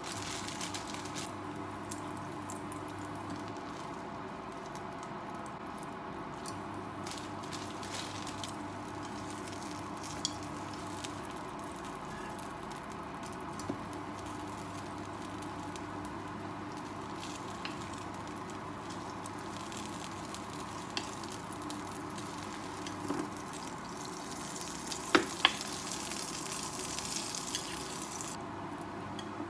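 Butter sizzling softly in a small frying pan as slices of bread toast in it, over a steady low hum. Now and then the wooden chopsticks click against the bread and pan, with two sharper taps near the end, when the sizzle grows brighter.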